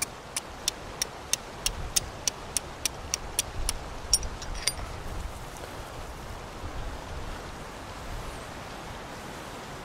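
Flint struck against a steel fire striker: a quick run of about fifteen sharp, high clicks, roughly three a second, that stops about halfway once a spark catches on the char cloth. A steady background hiss runs underneath.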